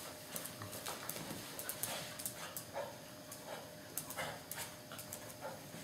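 Two small dogs playing on a tile floor: their claws click and skitter on the tiles in quick irregular taps, with a few brief soft dog noises.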